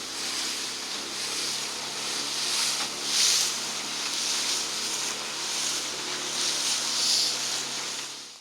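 A small boat's outboard motor running with a steady low hum under a hissing rush of wind and water that swells and fades every second or so.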